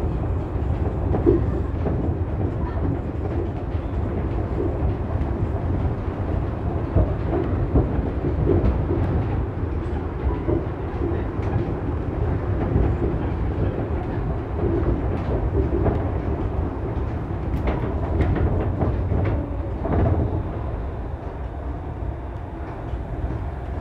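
Shonan Monorail car running along its overhead rail, heard from inside the front car: a steady rumble and rattle, with a few sharper knocks about three quarters of the way through.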